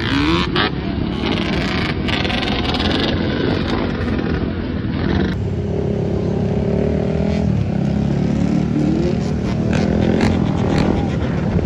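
Quad and dirt bike engines running and revving in a group ride, with short rising revs near the start and again near the end; the sound changes abruptly about five seconds in.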